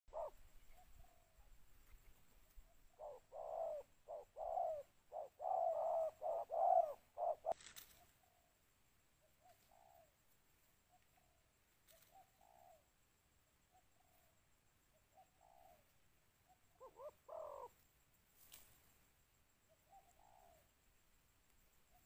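Spotted doves cooing. A loud run of coos comes in the first third, then fainter scattered coos, with another close group about two-thirds through. Two sharp clicks are heard, one at the end of the loud run and one shortly after the second group.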